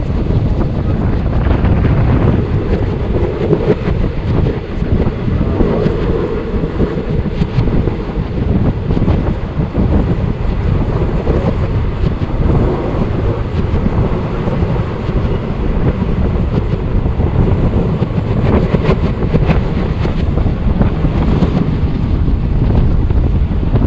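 Wind buffeting the microphone at speed from an open side of a moving express train, with the train's steady running noise underneath.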